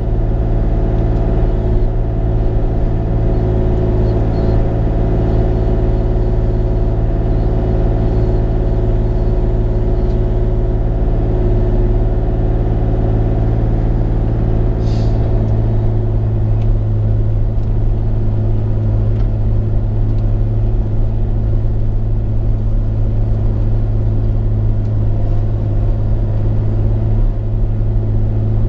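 Bobcat E35 mini excavator's diesel engine running steadily under work, with a single short click about halfway through.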